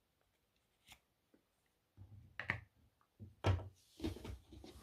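Handling noise as a metal lighter is fitted into a plastic storage case: a single click, then rustling with a couple of sharp knocks from about two seconds in.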